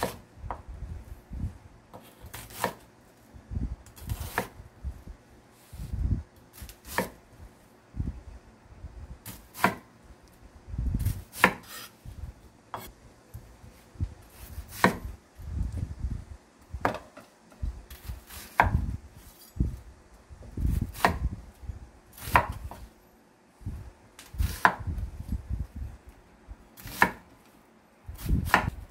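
Chef's knife chopping onions on a wooden cutting board: a sharp knock of the blade through the onion onto the board every second or two, at an uneven pace, as onion halves are cut into bite-size wedges.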